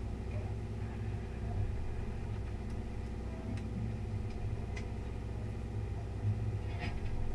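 A party fishing boat's inboard engine running steadily, a low even drone. A few faint clicks and knocks from the deck sound over it.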